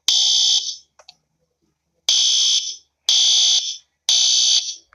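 Fire alarm sounding in four loud, high-pitched blasts, each under a second long and about a second apart, with one beat skipped after the first.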